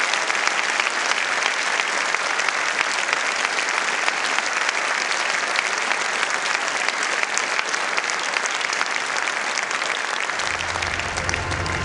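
Large theatre audience applauding steadily, a dense patter of many hands clapping. Near the end, low tones of music start underneath the clapping.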